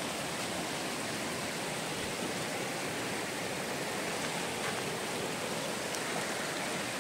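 Steady rushing of a mountain stream, with water running down the slope and across the road.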